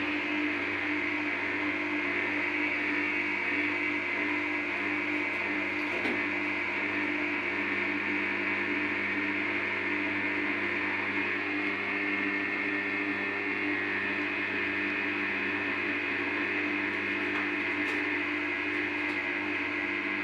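Front-loading washing machine running its wash, the drum turning a wet blanket, with a steady motor hum and whine.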